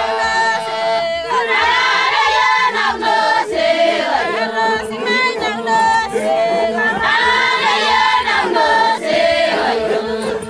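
Maasai villagers chanting together, many voices singing at once in short repeated phrases.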